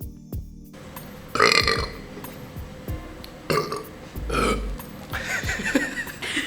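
Several loud burps in succession from people who have just drunk carbonated soda. The loudest comes about a second and a half in, and the others follow over the next few seconds.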